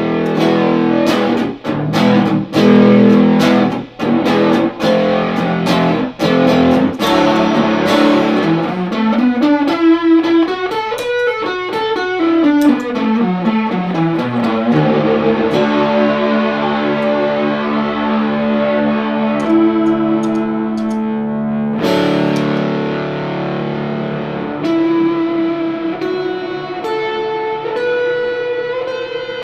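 Electric guitar played through an Electro-Harmonix Super Ego+ effects pedal: sharply plucked notes and chords, then a sound that glides up in pitch and back down, followed by a long held chord and more picked notes near the end.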